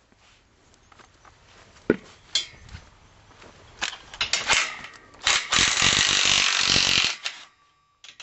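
Cordless drill-driver running in a steady burst of about two seconds, driving a bolt into a solar-panel mounting frame, after a few sharp metal clicks and short spurts of the tool. Another short spurt comes near the end.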